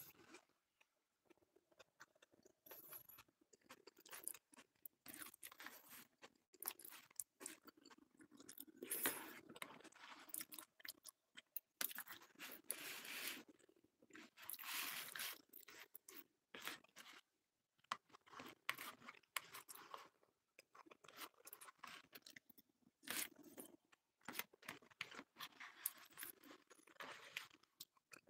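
A person chewing food close to the microphone: faint, irregular mouth clicks and chewing noises, busier and louder in the middle stretch.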